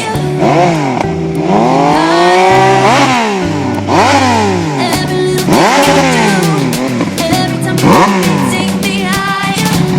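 Yamaha XSR900's 847 cc inline-three engine through an LCI aftermarket exhaust, revving up and dropping back again and again, each rise and fall lasting about a second. Background music with a steady bass line plays along.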